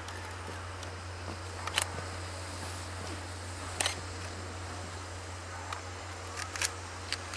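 Camera shutters clicking several times, some as quick double clicks, over a steady low hum.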